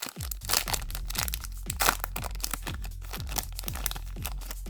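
Foil booster-pack wrapper crinkling and crackling as it is handled and torn open. Background music with a steady beat plays underneath.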